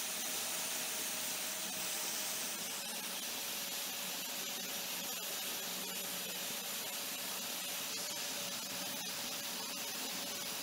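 Hot air rework gun blowing a steady hiss of hot air onto an iPhone 6 logic board's NAND flash chip, heating it to melt the solder so the chip can be lifted off.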